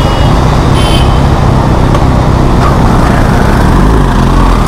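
Kawasaki Ninja ZX-6R's four-cylinder engine running as the motorcycle rides slowly through city traffic, under a heavy, steady low rumble.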